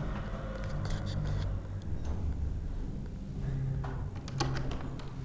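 Footsteps and the rumble of a handheld camera being carried while walking, with a few faint clicks and a steady low hum.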